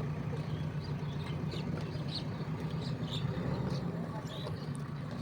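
Diesel engine of a JCB 3DX backhoe loader running steadily at a low, even speed, with short high chirps scattered over it.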